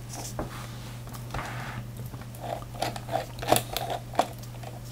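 Small Torx screwdriver turning a self-tapping screw out of a plastic case: faint scratchy scraping and a scatter of small clicks.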